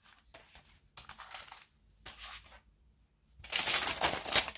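Paper rustling as cards, envelopes and a sheet of tissue paper are handled: two short rustles, then a longer, louder crinkle of tissue paper near the end.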